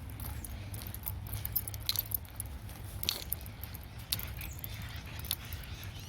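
Someone walking along a muddy trail: irregular light clicks and rustles, a few every second or two, over a steady low rumble.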